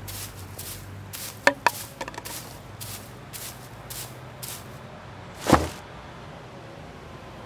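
Footsteps on stone paving, about two a second, with a few sharp clicks about a second and a half in, then one loud thump about five and a half seconds in.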